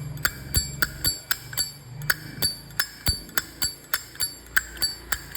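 Lid of a silver-plated Zippo lighter with its original hinge, flicked open and snapped shut over and over: a steady run of crisp metallic clicks with a high ringing ping, about three to four a second. It is the lid sound that is called quite good, the sign of a sound hinge and cam.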